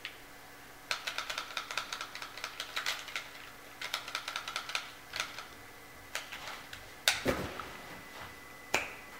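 Two runs of rapid sharp mechanical clicking, like typing, then a few single clicks and one heavier knock with a low thud near the end.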